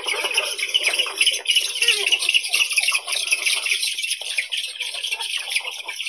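Eurasian spoonbill calls: a dense, continuous chatter of rapid, scratchy calls.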